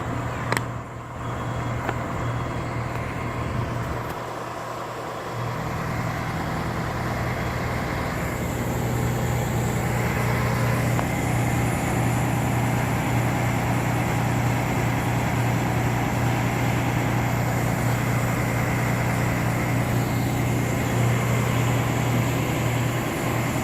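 Fire engine's diesel engine running steadily at idle, a low even hum that grows a little louder about eight seconds in. A short sharp click about half a second in.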